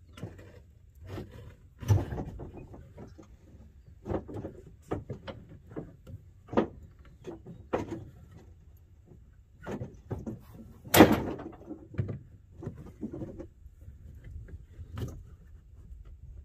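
Irregular knocks, clunks and rattles of panels and parts being handled, with a loud bang about eleven seconds in.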